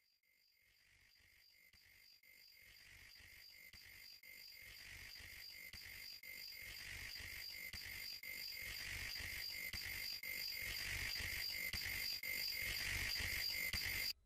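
Insects chirping in a steady rhythm, about two to three chirps a second, over a hiss and a low uneven rumble. The sound fades up slowly from silence, growing louder throughout, and cuts off abruptly at the end.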